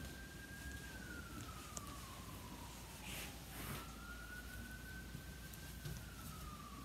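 Faint emergency vehicle siren wailing: a single tone that slowly rises, holds and sinks, then jumps back up about three and a half seconds in and starts sinking again.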